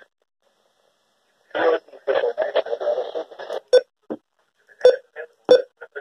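Midland weather radio's speaker playing the NOAA Weather Radio weekly-test broadcast. A choppy, garbled burst starts about a second and a half in, then short separate blips follow at irregular spacing.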